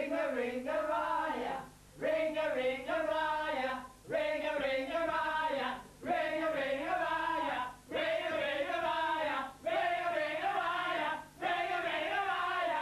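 A group of voices chanting together in unison, in repeated phrases of about two seconds, each followed by a brief pause.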